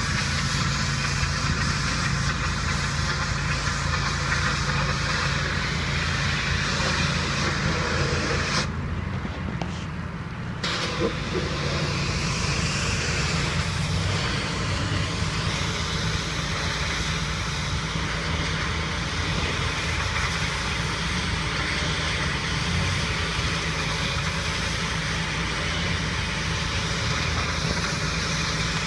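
Pressure washer running: a steady engine hum under the hiss of the high-pressure spray. The spray stops for about two seconds around nine seconds in while the engine keeps running, then resumes.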